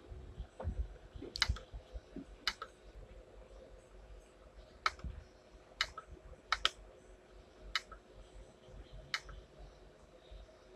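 Sharp single clicks of a computer being operated, about eight spread irregularly, two of them in a quick pair.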